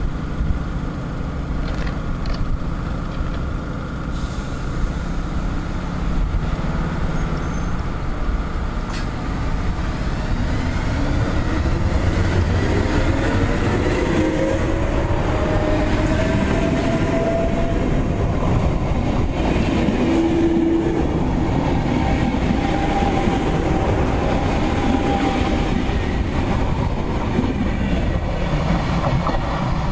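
NSB Class 69 electric multiple unit running along a station platform: a continuous rumble of wheels and motors that grows louder about a third of the way in, with a whine that rises in pitch over several seconds.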